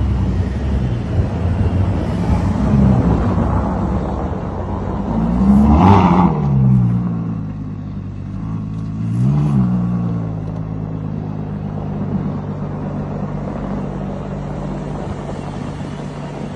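Ferrari Purosangue's naturally aspirated 6.5-litre V12 engine revving in three blips, the loudest about six seconds in, then running at a steady engine speed.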